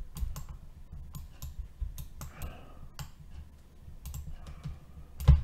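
Computer mouse clicks and keyboard key presses, irregular and spaced apart, as text is selected in a web page and copied. A single louder thump comes near the end.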